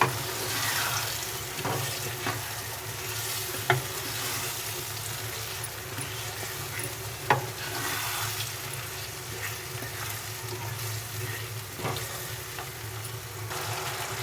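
Diced potatoes and peas sizzling in oil and tomato-onion masala while a spoon stirs them around the pot, with a few sharp knocks of the spoon against the pot.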